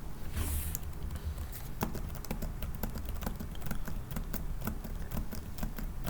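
Typing on a computer keyboard: a steady run of irregular keystrokes, several a second, as code is entered.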